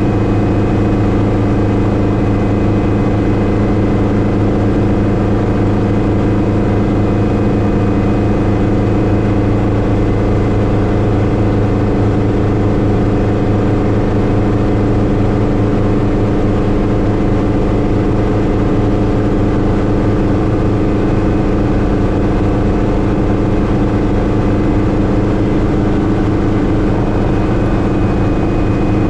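Schweizer 300C (Hughes 269C) light piston helicopter in cruise flight, heard from inside the cockpit: the engine and rotors run at a steady, constant pitch. A faint high whine is there at the start and comes back near the end.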